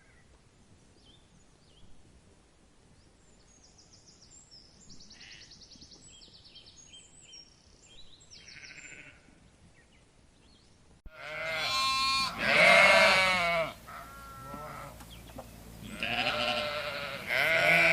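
Faint bird chirps at first, then, about eleven seconds in, sheep bleating loudly: several quavering bleats in two bouts with a short gap between them.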